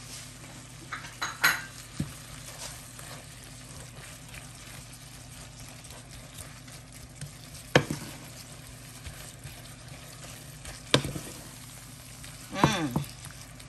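Beef liver stew sizzling gently in a nonstick frying pan on low heat while a wooden spoon stirs it. A few sharp knocks of the spoon against the pan ring out, the loudest about 8 and 11 seconds in.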